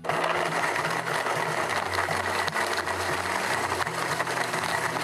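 Blendtec blender switching on abruptly and running at a steady high speed, crushing ice and blending yogurt into a shake.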